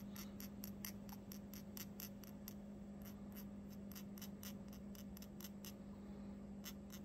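Light, even ticks, about four or five a second, from a small handheld glass-powder applicator being tapped to sift powder out. A steady low hum runs underneath.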